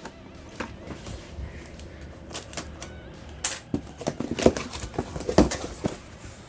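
Action-figure packaging being handled and opened by hand: irregular clicks, taps and rustles, coming thicker and louder in the second half.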